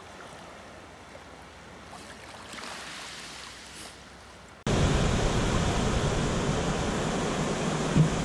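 Faint lapping of shallow seawater around a wading dog, then, after about four and a half seconds, a sudden switch to a loud, steady rush of surf breaking on a pebble beach.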